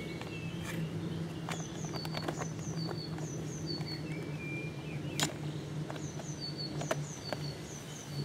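A small solar pond pump motor hums steadily, with scattered sharp plastic clicks and knocks as its casing is handled and fitted back together. A small bird chirps over it in repeated short pairs of high notes.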